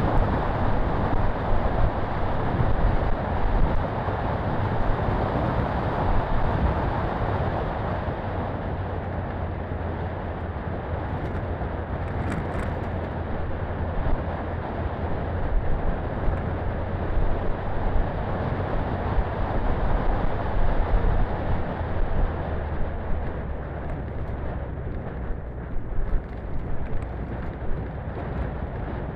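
Daihatsu Feroza 4x4 driving along a gravel track: the engine runs steadily under a continuous rush of tyre noise on gravel. A few sharp clicks come about twelve seconds in.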